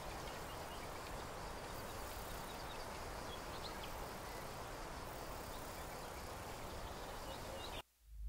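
Faint open-air field ambience: a steady hiss with scattered small bird chirps. It cuts to silence near the end, and a low rumble begins just as it ends.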